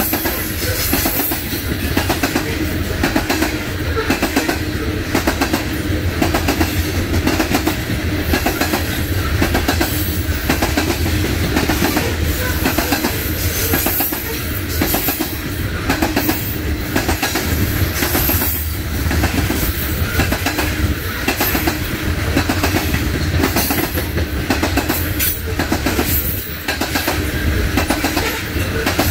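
Coal train cars rolling past close by: a steady rumble of wheels on rail with a regular clickety-clack as the wheel sets cross the rail joints.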